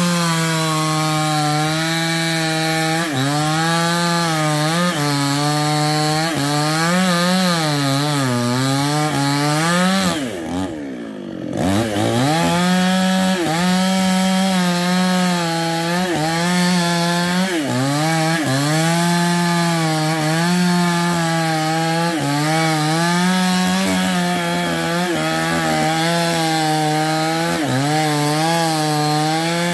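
New West 628 two-stroke chainsaw at full throttle cutting into a sengon tree trunk with a sharp, well-set chain, its engine pitch sagging and recovering over and over as the bar bites into the wood. About ten seconds in the throttle is let off and the engine drops briefly toward idle, then revs back up and keeps cutting.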